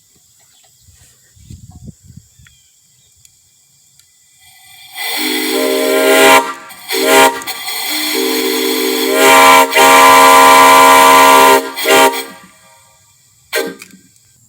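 Two brass Airmore exhaust whistles piped together on a 1/2-inch Crane whistle valve, blown as a chord of several steady tones. About five seconds in comes a blast of about a second and a half, then a short toot, a long blast of about four seconds, and a brief toot near the end.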